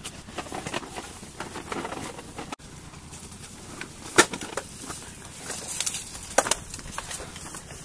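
Leaves and branches rustling and twigs cracking as people push through dense shrubs, in irregular bursts with a few sharper cracks, the loudest about four seconds in and again a couple of seconds later.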